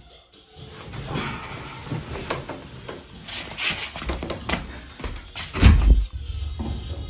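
Soft footsteps and rustling of someone in slippers moving on a laminate floor, with scattered light knocks. Near the end a loud low thump, then bass-heavy music comes in.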